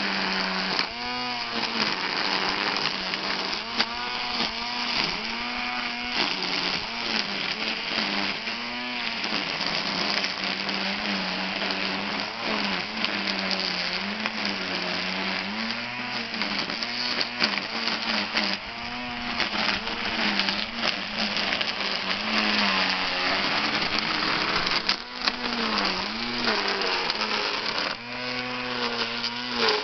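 Cordless electric string trimmer running continuously as its nylon line cuts grass and weeds. The motor's whine repeatedly dips and recovers as the line bites into the growth, over a steady hiss of line thrashing the grass.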